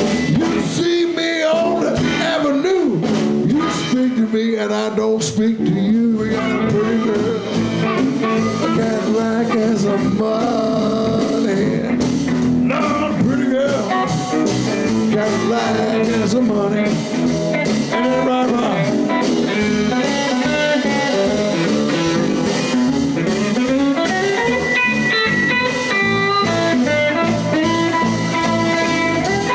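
Live blues band playing a shuffle, with guitar over bass and drums.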